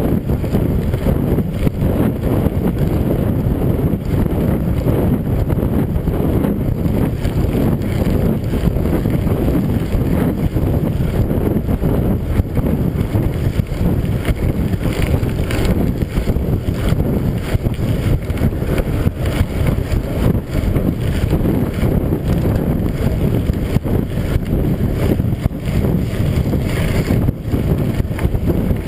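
Steady wind noise on the microphone of a camera riding on a mountain bike, over the crunch and rattle of its tyres rolling on a gravel road.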